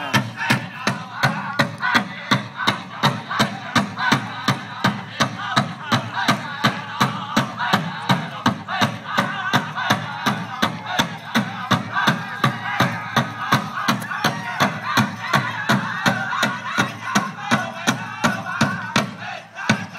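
Powwow drum group singing: a big drum struck in a steady fast beat under the singers' voices.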